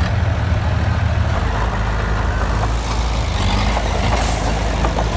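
Heavy diesel engine of a tipping dump truck running, then, after a change about a second and a half in, the diesel engine of a small Komatsu D20P crawler dozer running, with a few brief clanks.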